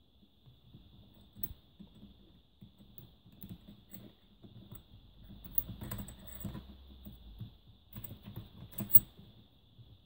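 Metal lock cylinder handled in a small bench vise as it is loosened and lifted out: scattered light clicks and knocks, busiest about six seconds in and again around eight to nine seconds.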